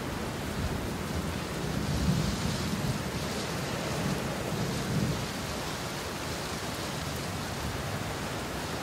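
Heavy rain pouring down steadily as an even hiss, with a low rumble that swells a couple of times.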